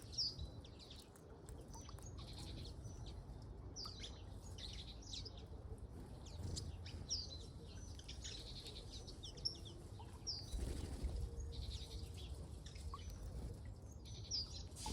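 Birds in an aviary giving short, high chirps and calls scattered irregularly throughout, over a steady low rumble, with a brief rustle about two-thirds of the way in.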